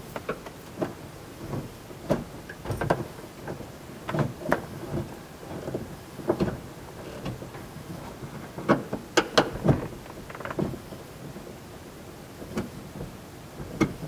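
Irregular clicks, knocks and rustling as a hand works a replacement power door lock actuator into place inside a minivan's sliding door, plastic tapping against the door's sheet metal. The knocks come in small clusters, several in quick succession near the middle.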